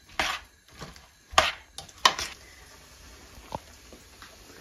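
A spoon knocking and scraping against the side of a stainless-steel pot while stiff pakora batter of vegetables and gram flour is mixed. Three sharp knocks come within the first two seconds, then it goes quiet apart from a faint tick.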